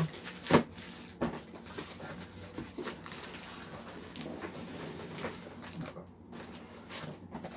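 Cardboard shipping box being handled and opened: flaps rustling and scraping, with two sharp knocks in the first second and a half.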